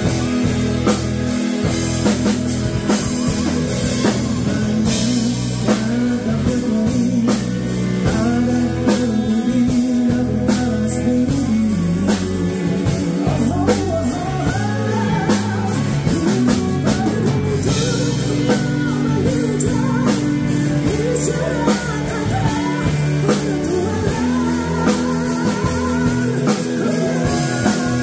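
A band plays a rock-style song with drum kit and guitar at a steady beat. A singing voice carries the melody from about eight seconds in.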